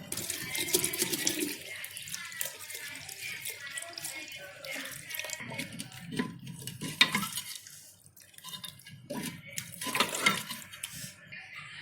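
Milk being poured into a pot of thickening kheer, splashing in the first few seconds, followed by liquid stirring sounds and a few sharp utensil knocks.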